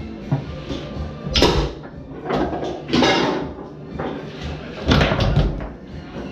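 Foosball play on a Tornado table: irregular sharp knocks and clacks as the ball is struck by the men on the rods and bangs off the table's walls, loudest about a second and a half in, at three seconds and near five seconds.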